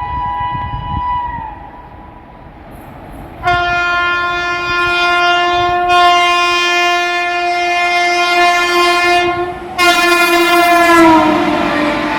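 WAP-7 electric locomotive's shrill horn. A blast dips in pitch as it ends, then after a few seconds of train rumble a long horn sounds for about six seconds. After a brief break a second blast drops in pitch as the locomotive passes, and the rushing noise of the train swells near the end.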